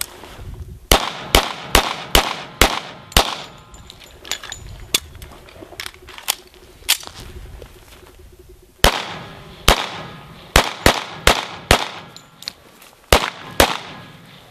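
Pistol gunfire: a quick string of about six shots, a few single shots spaced out, then another rapid string of shots near the end.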